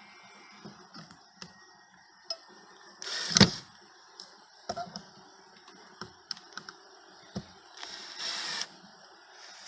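Scattered light clicks and knocks from handling at a wooden top-bar beehive while the queen cage is set in place. There is a louder brief scrape about three seconds in and a longer rustling scrape around eight seconds.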